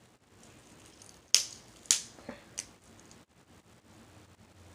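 Snow crab leg shell cracking by hand: a few sharp snaps over about a second and a half, the first two the loudest.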